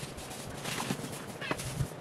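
Rustling with a few short, light knocks and clicks, the handling of yard debris during a cleanup.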